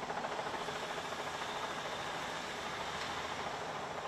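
Demolition excavator's diesel engine running steadily with a fast, even beat while its hydraulic shear works at a building wall.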